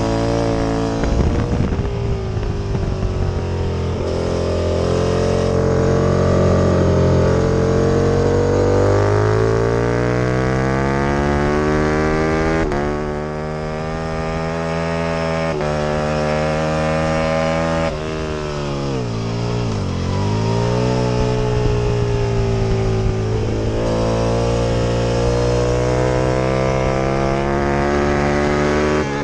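Aprilia RSV Mille V-twin race bike under full throttle, its pitch climbing through the revs with quick breaks at upshifts about 12.5 and 15.5 seconds in. The revs then fall steeply as the bike slows, bottoming out about 20 seconds in, before it pulls hard up through the gears again.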